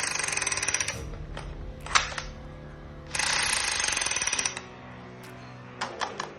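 Toy rifle firing two rapid-fire bursts, the second about three seconds after the first and lasting about a second and a half, followed by a few plastic clicks.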